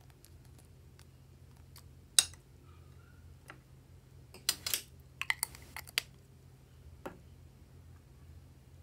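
Small clicks and taps of steel scissors and a metal lipstick tube being handled over a glass bowl. There is a sharp click about two seconds in, a cluster of clicks and light rattles a little past the middle, and one more click near the end.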